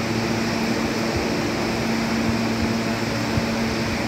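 Steady hum and fan noise of an R160 subway car standing at the platform with its doors open, its air-conditioning and auxiliary equipment running.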